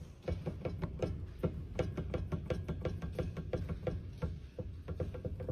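A loose car suspension component knocking over and over, about three knocks a second, as it is worked back and forth in a test with the car lifted and the wheel off: the play that makes a suspension noise.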